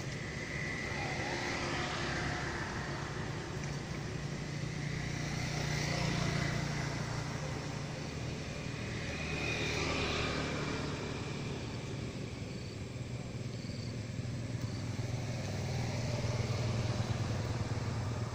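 Engines of passing road vehicles, swelling as they go by about six and ten seconds in and again near the end, over a steady low engine sound.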